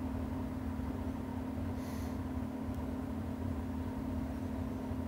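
Steady low hum with one constant tone over a low rumble, with a short soft hiss about two seconds in.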